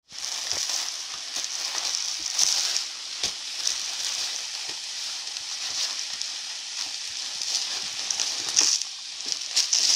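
Granular cat litter pouring from a bag into a plastic litter box: a steady hiss with scattered sharp clicks and louder swells as the stream shifts.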